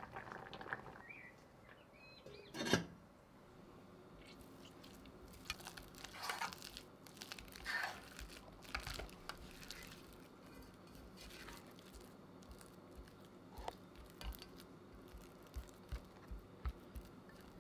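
Boiled potatoes being mashed with a hand potato masher in a stainless steel saucepan: a run of soft squelching, crunching strokes. A single loud metal clink comes about three seconds in, and soft low thuds of a spatula working the mash come near the end.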